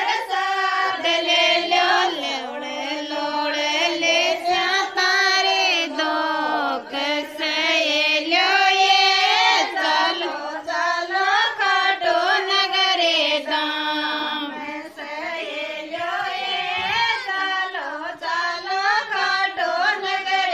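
Female voice singing a Rajasthani devotional folk song (lokgeet), the melody bending up and down through long sung lines.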